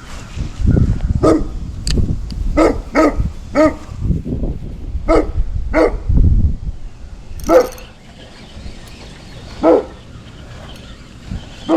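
A dog barking, about eight single barks at uneven intervals, over a low rumbling noise.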